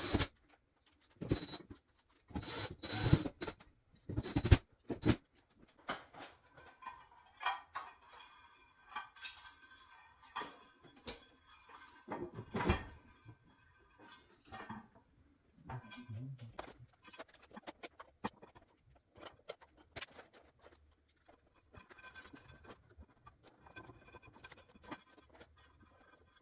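Hardware and parts being handled: irregular clicks, knocks and light rattles, loudest in the first few seconds, with another sharp knock a little before the halfway point.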